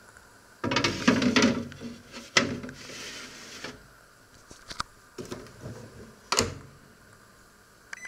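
A china plate clattering as it is slid onto the rack inside a Panasonic microwave oven, with a sharp knock, scraping and small rattles, then the oven door knocking shut about six seconds in and a short beep from the control panel at the very end.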